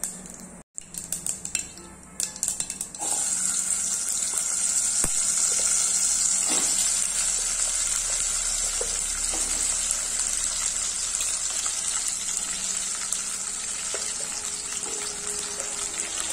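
Masala-stuffed okra going into hot oil: light crackling of the mustard-and-cumin tempering for the first few seconds, then a sudden, steady frying sizzle as the okra hits the oil.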